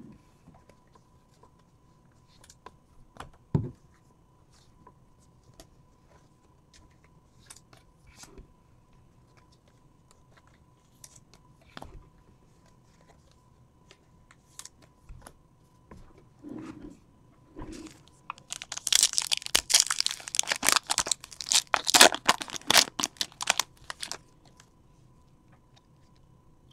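Foil trading-card pack wrapper being torn open and crinkled by hand: a dense crackling run starting about two-thirds of the way in and lasting some five seconds. Before it, scattered light clicks and taps of cards and packs being handled on the table.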